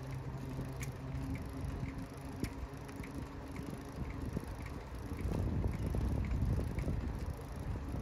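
Bicycle rolling along a paved lane: wind buffeting the handlebar-mounted microphone over tyre rumble, with faint ticking about twice a second. The rumble grows louder about five seconds in.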